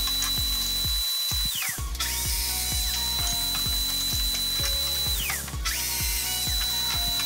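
Domino joiner motor starting with a rising whine, running at a steady high pitch and winding down, three times: it stops about a second and a half in, runs again until about five seconds in, then starts a third time near the end. Background music plays underneath.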